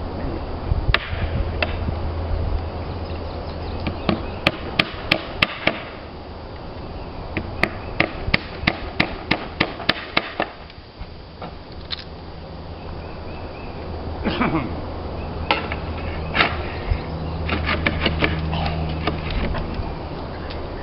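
Hammer strikes on slate roof work: three quick runs of sharp taps, about four to five a second, with single knocks in between. A low steady hum lies underneath and drops away in the middle.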